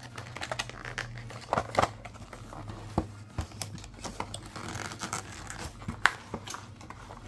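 Cardboard trading-card starter deck box being opened by hand: flaps unfolded and the inner tray slid out, giving a quick run of small clicks, rustles and scrapes. There is a soft sliding hiss around five seconds in and a sharper snap of cardboard about six seconds in.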